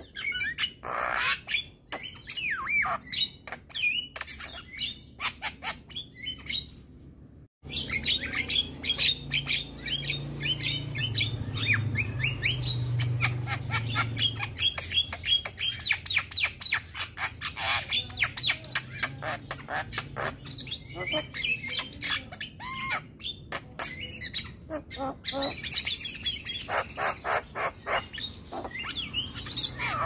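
Male Javan myna (jalak kebo) singing a fast, unbroken stream of short, sharp calls and whistles, with a brief break about seven seconds in.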